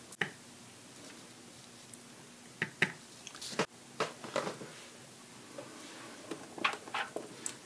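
Paper and a clear stamp being handled: scattered light taps and brief rustles over quiet room tone, with a few more taps near the end.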